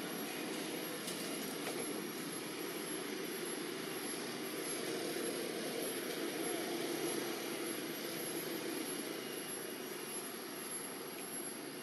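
Steady droning background noise that swells a little around the middle and eases near the end, with a thin steady high whine above it.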